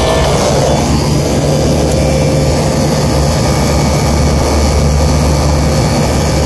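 Air-conditioning unit running: compressor and condenser fan making a steady loud hum and rush of air.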